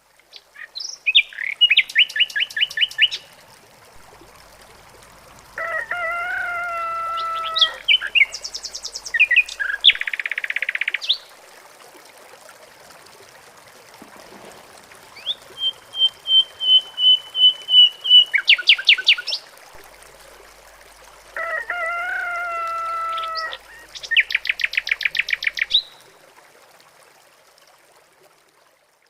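Several birds singing and calling in turn: fast trilled phrases, a long steady high whistled note followed by a rapid series of notes around the middle, and twice a lower, held call of about two seconds. Underneath, a faint steady rush of flowing river water.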